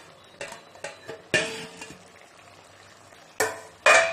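Metal cooking pot's steel lid clanking against the pot rim as it is lifted off and handled: five metallic knocks with a short ring, the loudest about a second in and near the end.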